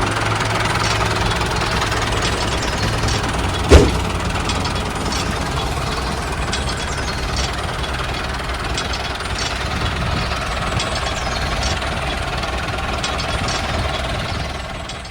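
Small engine of a miniature DIY combine harvester running steadily with a fast knocking rattle. There is one sharp, loud knock about four seconds in, and the sound fades out at the very end.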